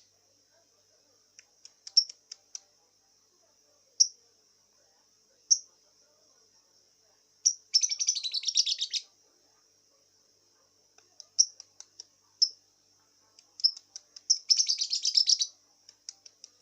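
Juvenile lovebird, still learning its song with a hoarse voice, gives single sharp chirps a second or two apart, broken twice by a fast chattering run of about a second.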